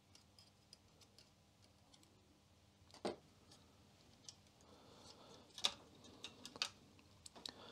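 Faint, scattered small clicks and rubbing as fingers work a rubber drive belt onto a floppy drive's pulley under its lifted circuit board. The clearest click comes about three seconds in, with a few more near the end.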